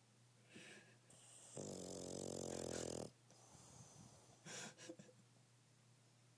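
Bulldog snoring. A short breath is followed by a long pitched snore of about a second and a half, the loudest sound. A shorter, softer snore with a couple of quick snorts comes about four and a half seconds in.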